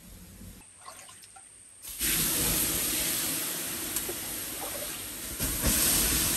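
Water poured onto a bed of glowing charcoal, hissing and sizzling loudly as it flashes to steam and quenches the embers. The hiss starts suddenly about two seconds in and swells again near the end, after a few faint ticks from the embers.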